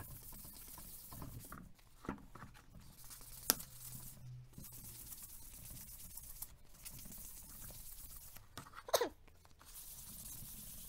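Soft-back sanding sponge scrubbing over a plastic headlight lens, a dry scratchy rubbing while it keys up the yellowed, oxidised top layer. A sharp click about three and a half seconds in and a short squeak falling in pitch near the end.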